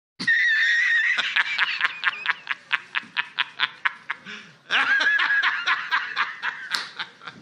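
A man's loud, high-pitched hysterical laughter: a held wheezing shriek at first, then a fast run of cackles at about five a second, another held shriek about five seconds in, and more cackles.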